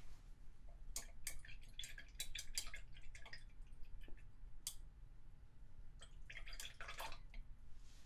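Painting supplies being handled: light clicks and taps in two quick clusters, one about a second in and one about six seconds in, with a single tap between them.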